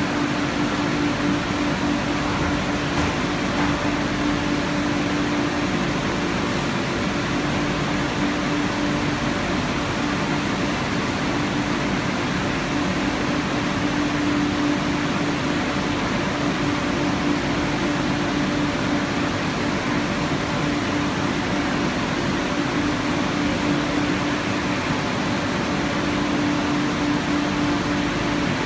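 Conveyorised photo-etching and stripping machine running: a steady, even hum and rush of its pumps and conveyor drive, unchanging throughout.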